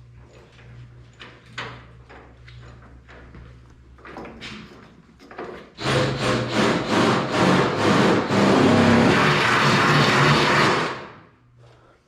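Power drill starting in a few short trigger pulses, then running steadily for about five seconds before stopping, likely drilling mounting holes in the car's sheet metal.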